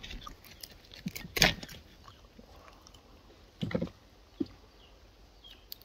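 Scattered clicks and taps of coconut crab shell against eating utensils as a claw is handled, the loudest a sharp knock about a second and a half in.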